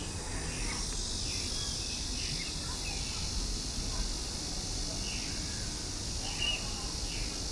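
A steady high-pitched insect drone fills the air, with short chirping bird calls scattered through it, over a low background rumble.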